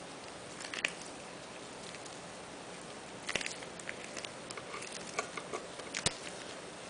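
Plastic soap mold being flexed and peeled away from a set soap loaf: scattered small crackles and clicks, a cluster about halfway through and one sharp click near the end.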